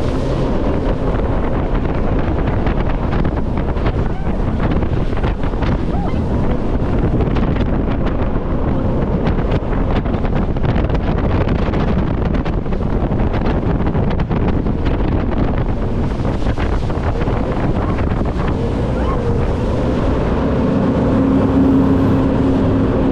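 Jet boat running at speed over a shallow river: the engine and jet drive mixed with rushing water and spray, and wind buffeting the microphone, a steady roar throughout. Near the end a steady low engine hum comes up out of the noise.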